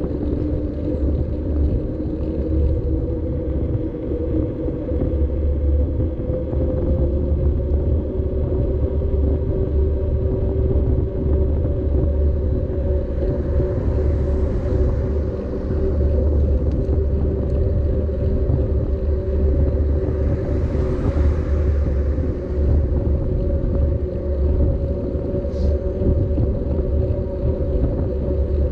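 Steady wind rumble and road noise on a bicycle-mounted action camera while riding, with a low hum whose pitch drifts slowly. Twice, about halfway and about two-thirds of the way through, a hiss swells up and fades away.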